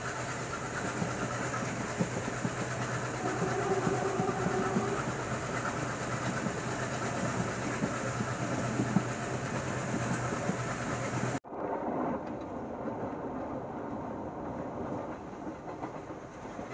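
Diesel-hauled passenger train running along the track, with steady rumble and wheel clatter over the rails. About eleven seconds in, the sound breaks off abruptly and goes on quieter and duller.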